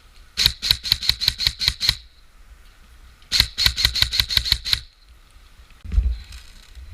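Airsoft rifle firing two full-auto bursts of sharp clacking shots, about six or seven a second, each burst lasting about a second and a half. A dull thump follows near the end.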